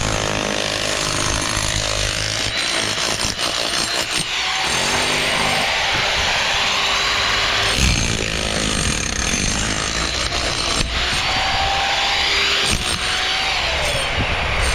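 A power tool running steadily with a loud, noisy, continuous sound, and a few short sliding tones in its last few seconds.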